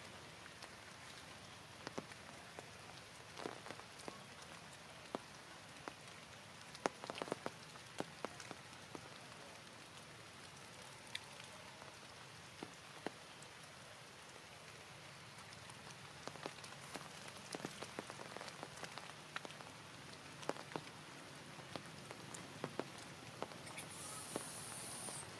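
Steady rain falling, with many scattered sharp drop hits. A higher hiss comes in near the end.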